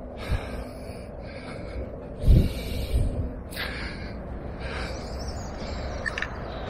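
Handling noise from a handheld camera being moved outdoors: a low steady rumble, a dull bump about two seconds in, and a few short hissing sounds.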